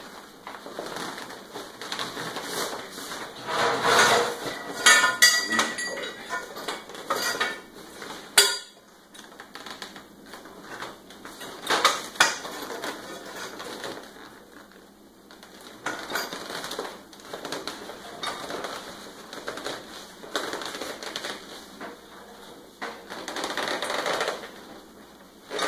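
Steel frame tubes of a lawn sweeper's hopper clinking and knocking against each other as they are slid through the fabric hopper bag, with the bag rustling in between. The clinks come irregularly, the loudest clusters about four to five seconds in, where one rings briefly.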